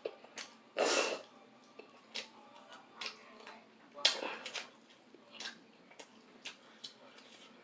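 A person eating close to the microphone: scattered small mouth and utensil clicks, with two louder breathy bursts about a second in and about four seconds in.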